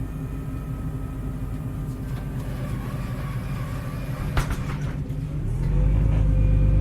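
Heuliez GX317 LPG city bus heard from on board: the engine runs with a steady low drone, a single sharp knock comes about four and a half seconds in, and about a second later the engine's drone grows markedly louder as it pulls harder.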